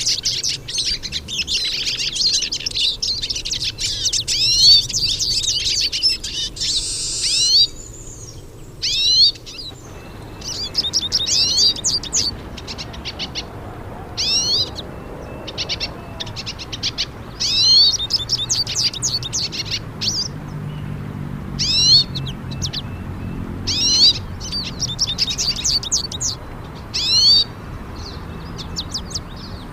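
Hooded siskins (pintassilgos) singing: fast, high twittering song, continuous for the first several seconds, then after a short break coming in phrases of a second or two with brief pauses between them.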